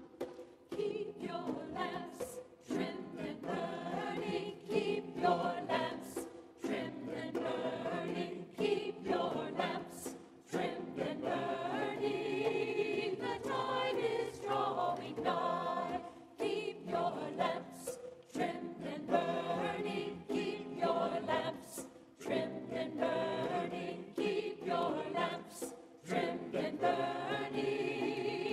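Mixed church choir singing in parts, in phrases with short breaths between them.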